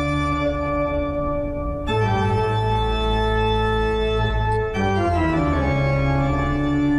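Segment-break theme music of long held, organ-like chords. The chord changes about two seconds in and again near five seconds, where the pitch slides down into the next chord.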